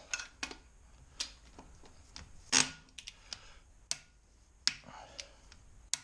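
Click-type torque wrench tightening lug nuts to 100 foot-pounds: about eight short, sharp clicks and knocks at irregular intervals, the wrench clicking as the nuts come up to torque.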